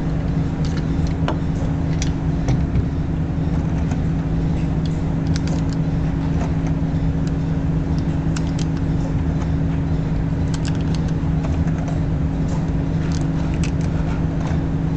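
A steady low machine hum holding two constant tones, with a few faint light clicks over it.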